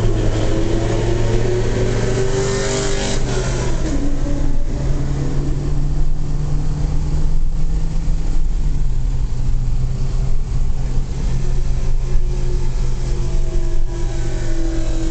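2002 Corvette Z06's LS6 V8 running loud with its exhaust cutouts open, inside a highway tunnel. The engine note drops about three to four seconds in, then holds steady.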